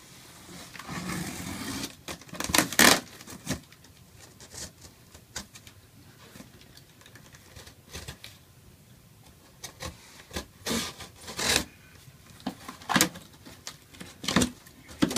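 Box cutter slitting the packing tape along a sealed cardboard box: intermittent scraping and ripping, loudest about three seconds in and again over the last few seconds, as the taped flaps are pulled apart.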